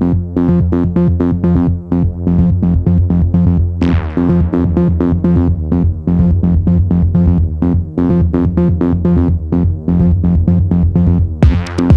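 Electronic background music: synthesizer and keyboard notes over a fast, even beat, with a cymbal swell about four seconds in and another near the end.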